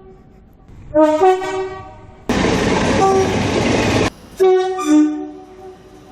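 A train's two-tone horn gives short blasts, each switching between a lower and a higher note: one about a second in and another about four and a half seconds in. Between them a loud rushing noise starts and stops abruptly, lasting nearly two seconds.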